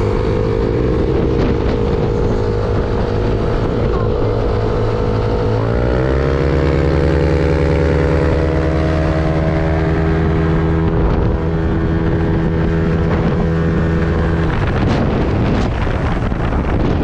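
Yamaha NMAX 155 scooter's single-cylinder engine through a CRP bolt-on aftermarket exhaust, under hard acceleration: a steady engine note that jumps up in pitch about six seconds in and holds there while road speed keeps climbing, typical of the scooter's automatic belt drive. Near the end the engine note falls away as the throttle is closed, leaving wind rush on the microphone.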